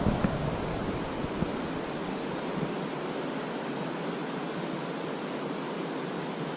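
Steady rushing of flowing creek water, with a low rumble in the first couple of seconds that dies away.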